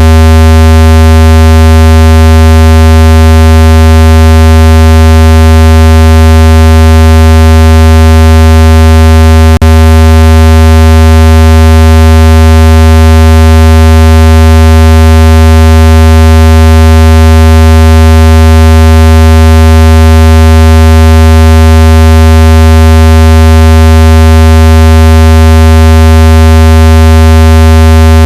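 Loud, steady low buzzing tone with many overtones: a speaker-cleaning tone played to vibrate water and dust out of a phone speaker. It holds constant pitch throughout, with one brief click about ten seconds in.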